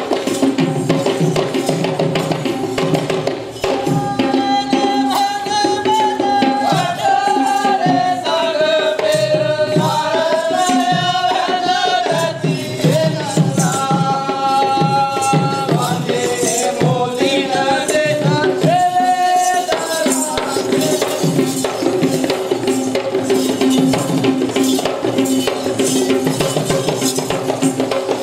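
Kandyan drums (geta bera) beaten by hand in a fast, steady dance rhythm. A pitched melody line with many overtones joins the drums from about four seconds in and drops out around twenty seconds.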